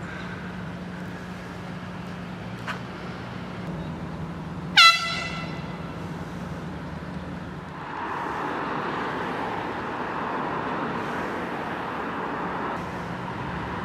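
One short, loud blast of a handheld air horn about five seconds in, over a steady low hum.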